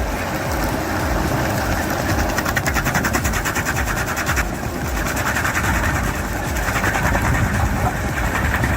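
Heavy machinery engine running steadily, with a fast mechanical rattle that thickens for a couple of seconds a few seconds in.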